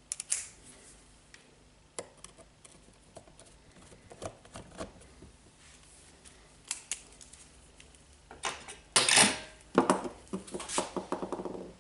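Handling noise of hard objects: scattered light clicks and knocks, then a louder clatter near the end, with a short scraping rush and some brief ringing.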